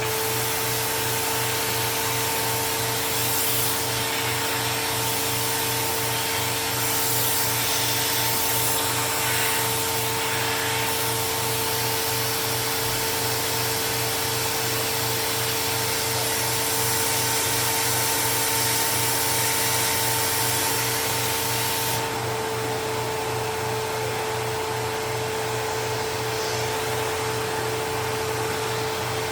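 Dust Care Evolution Prestige 6502Z upright vacuum running steadily: a whining motor over a wide rushing hiss. About two-thirds of the way through, a lower tone cuts out and the highest hiss drops, while the motor keeps running.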